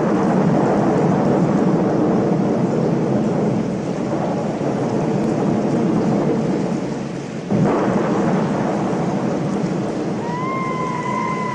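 Thunderstorm: rolling thunder over steady rain, with a fresh thunder rumble breaking about seven and a half seconds in. Near the end a held musical tone slides in.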